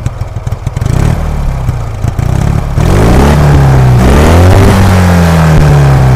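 Motorcycle engine idling with an uneven beat, then revved about three seconds in, its pitch rising and then holding at a steady higher speed.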